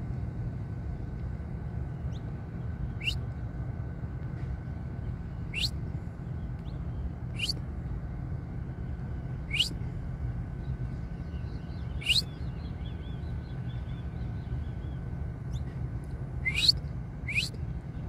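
Saffron finch giving short, sharp chirps that sweep upward, about seven spread a second or two apart, with two close together near the end, over a steady low rumble.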